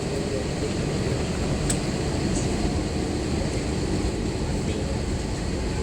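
Steady rumble of an Airbus A321's IAE V2500 engines and airframe heard inside the cabin, with a small click about one and a half seconds in.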